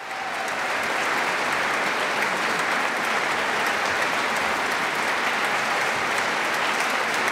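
Audience applauding, a dense, even clapping that swells up in the first second and then holds steady.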